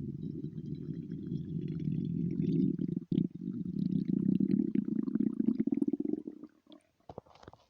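Human stomach rumbling: one long, low growl of about six seconds that wavers in strength, with a brief break about three seconds in. It dies away into a few short gurgles near the end.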